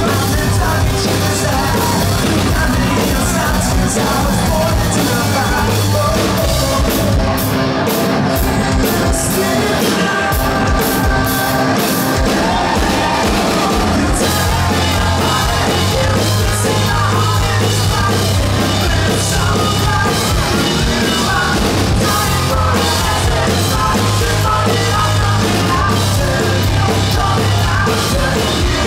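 A live rock band playing loud: electric guitar, bass guitar and drums, with a lead vocal sung and yelled over them. The sound is dense and heavy, as heard from the crowd.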